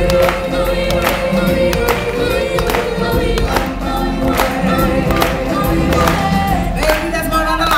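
Stage show music: a choir singing sustained lines over a steady beat of about two strokes a second.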